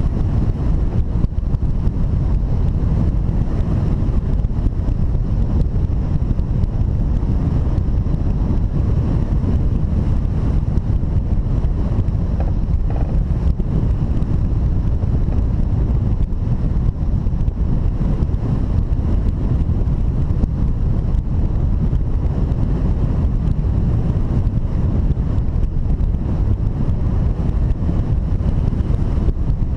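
Wind noise from the airflow of a hang glider in flight blowing across a glider-mounted camera's microphone: a steady, loud, low rumble with no pauses.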